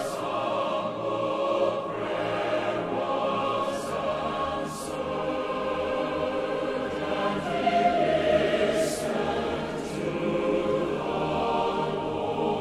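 A choir singing slow, held chords as background music.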